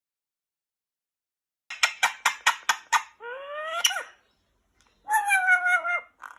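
A bird's calls: a quick run of about seven sharp chirps, then a rising-and-falling call, then a longer, wavering call.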